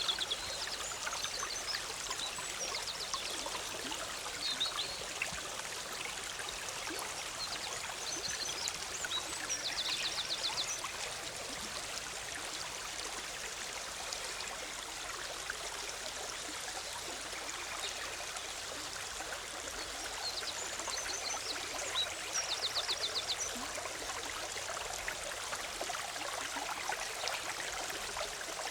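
Forest stream bubbling and trickling steadily over rocks. Songbirds call over it, with short rapid high trills about three seconds in, around ten seconds, and again near twenty-two seconds.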